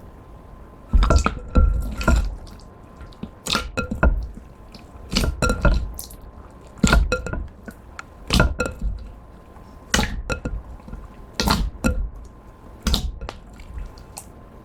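Metallic jiggly slime being worked by hand, making wet, sticky clicks and squelching pops in short clusters about every second and a half.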